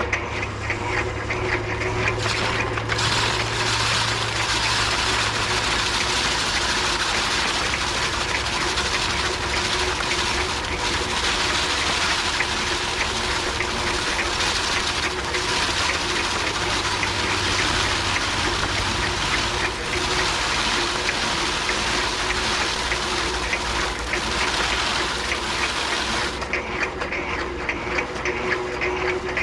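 Foot-pedal paddy thresher running, its spiked drum spinning with a steady hum under a continuous rushing noise. The rush gets stronger about two and a half seconds in and eases again near the end.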